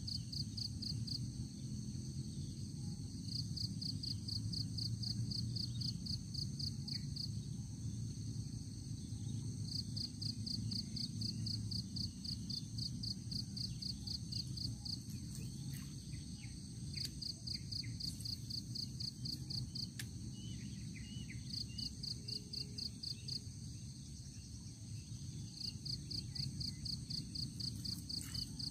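Insects, crickets or similar, chirping in repeated trains of about five pulses a second, each train lasting a few seconds, over a steady high-pitched insect drone. A low steady rumble runs underneath.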